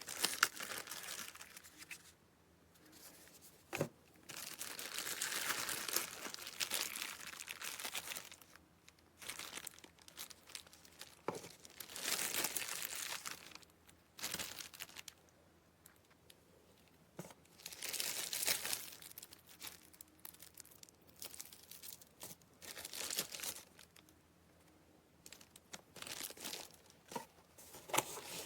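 Packaging being crinkled and rustled in repeated bursts of a second to a few seconds each, with a few sharp clicks and knocks in between.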